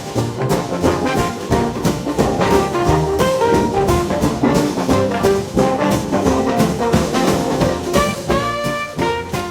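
Instrumental music with a steady beat and melody lines throughout.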